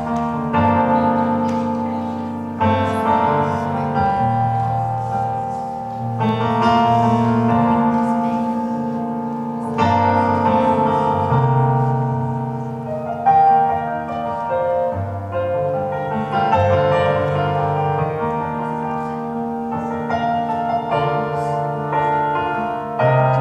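Stage keyboard in a piano voice playing slow, sustained ballad chords as a solo introduction.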